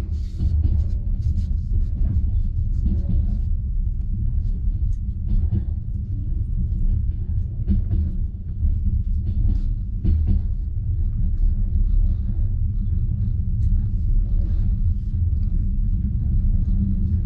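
Passenger train running on the rails, heard from inside the carriage: a steady low rumble with irregular clicks and knocks of the wheels over rail joints and switches through the station yard.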